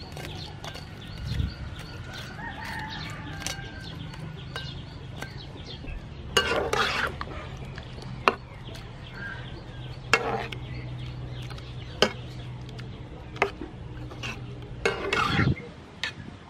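A metal ladle stirring shellfish meat in a pan of boiling water, knocking and scraping against the pan several times. Chickens cluck in the background.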